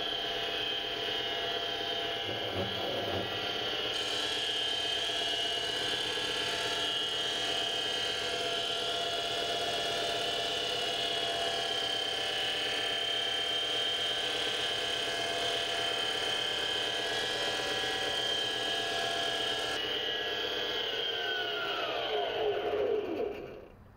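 7x16 mini lathe spindle running at speed with a steady whine while a narrow carbide grooving tool pecks its way through A2 tool steel in a parting cut. About 21 seconds in the whine falls in pitch as the spindle spins down and stops.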